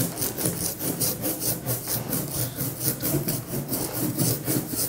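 Hand brayer rolling thick linocut printing ink out on a glass pane in quick, even back-and-forth strokes: a rhythmic tacky, hissing rubbing sound as the ink is spread into a thin layer.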